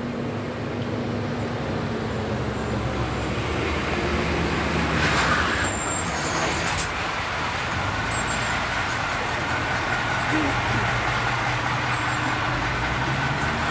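A motor vehicle's engine running close by as a steady low drone, with a short hiss about five seconds in.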